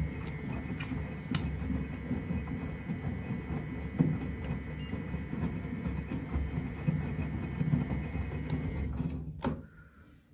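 Miele Novotronic W925 washing machine drum turning in its wash rhythm: the motor's thin whine over a rumble, with laundry thumping inside the drum. It stops with a click about nine and a half seconds in.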